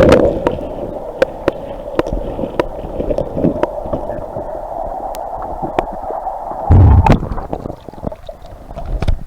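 Creek water gurgling and sloshing, with many sharp clicks of stones and gravel, and a loud low bump about seven seconds in.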